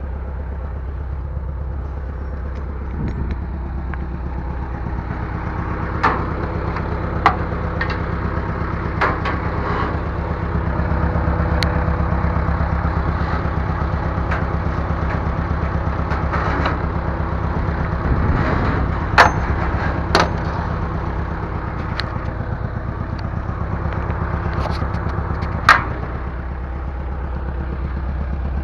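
Bulldozer's diesel engine running steadily, growing louder for several seconds partway through, with a handful of sharp metallic clanks.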